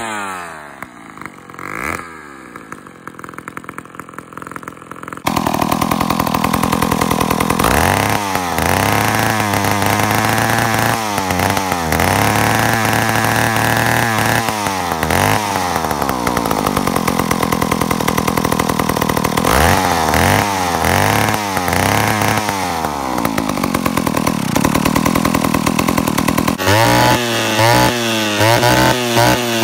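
Old two-stroke chainsaws running. The first is quieter, its engine note falling. About five seconds in a vintage McCulloch chainsaw is revved up to high speed and let back to idle again and again. Near the end another old saw is blipped in quick, short revs.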